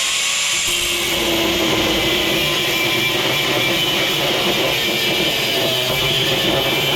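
Electric angle grinder running under load, cutting through seized nuts on a scrap motor: a loud steady whine over a harsh hiss. Cutting the nuts off is the fallback because they would not unscrew.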